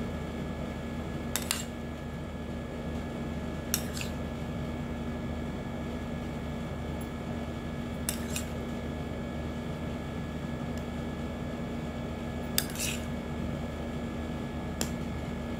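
A metal spoon clinking against crockery while diced mango is scooped and laid out, about five brief doubled clinks a few seconds apart, over a steady low hum.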